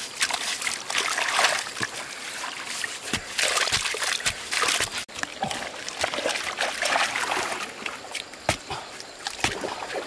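Hands scooping and churning wet mud and shallow muddy water, with irregular splashing, sloshing and trickling, and a few sharp knocks near the end.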